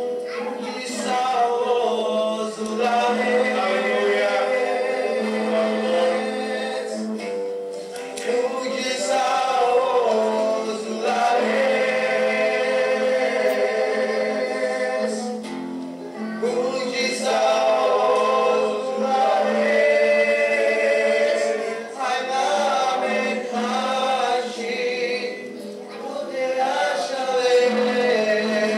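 Voices singing a gospel song to acoustic guitar accompaniment.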